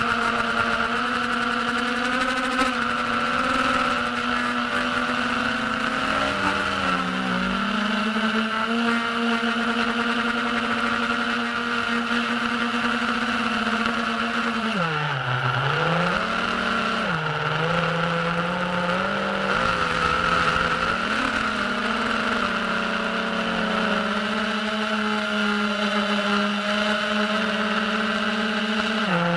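Diatone Tyrant S FPV quadcopter's brushless motors and propellers whining steadily in flight, the pitch dipping and rising again twice about halfway through as the throttle is eased off and reapplied.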